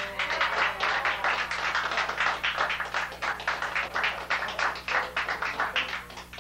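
A small group of people applauding by hand, dense irregular clapping that thins out near the end.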